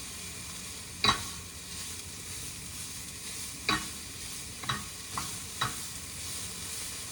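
Onions frying in a pan with a steady sizzle, while a utensil stirring them knocks against the pan five times.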